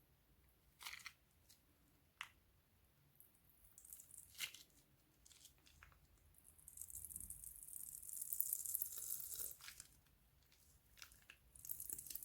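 Plastic piping bag crinkling as it is handled: a few sharp clicks, then a loud run of crinkling for about three seconds in the middle and a shorter burst near the end.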